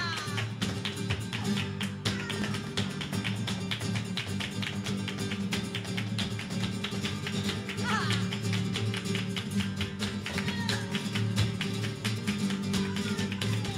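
Live flamenco music led by a flamenco guitar played with fast, dense strokes.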